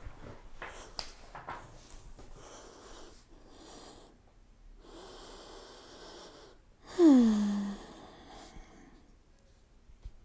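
A person breathing slowly in and out, with a loud voiced sighing exhale about seven seconds in that falls in pitch and levels off briefly.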